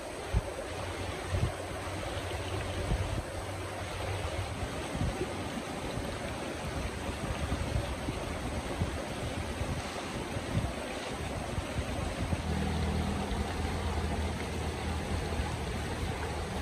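Shallow forest stream rushing steadily over rocks, with a few light knocks.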